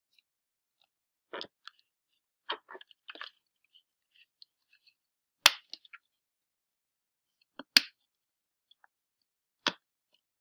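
Scattered handling noises from a rubber balloon stretched over a plastic water bottle being held and squeezed: soft crinkles and crackles, with three sharp clicks in the second half.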